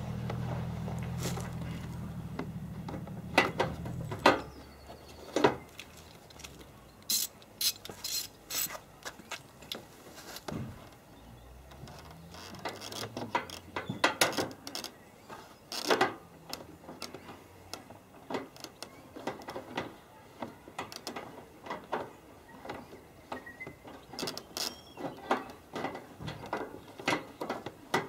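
Irregular clicks and sharp knocks from a socket ratchet and metal panel fixings as bolts on a replacement car front wing are worked and tightened. A low hum fades out in the first few seconds.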